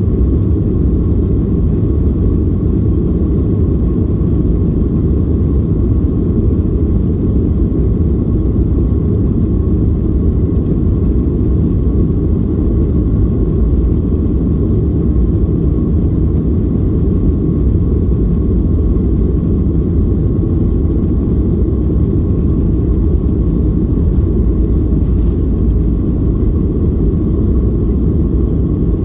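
Cabin noise in a Boeing 737-800 taxiing onto the runway: its CFM56 engines at taxi power make a steady low rumble with a faint steady whine.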